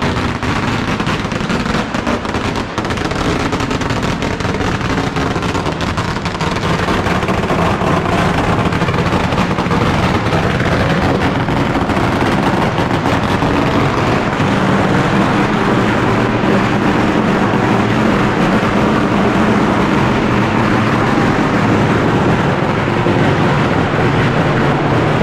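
A long string of firecrackers going off in a dense, rapid, unbroken crackle of bangs, loud and steady for about 25 seconds.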